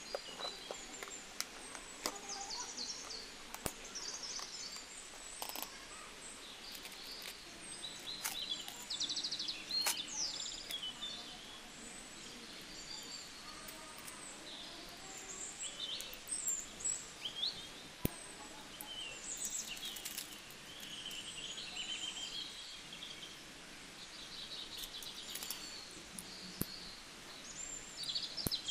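Birds chirping and trilling throughout, over sharp little clicks and taps of metal binder clips and paper clips handled in a clear plastic case.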